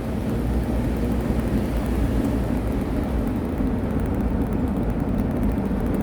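Steady low rumble of a car driving on the road, heard from inside the cabin: tyre and engine noise.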